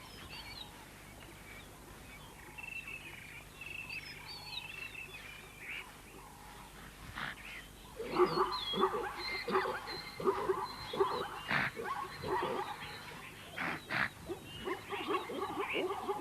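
Wild animal calls: faint high wavering calls at first, then from about eight seconds in a loud, rapid run of short yelping, barking calls broken by a few sharp snorts or knocks.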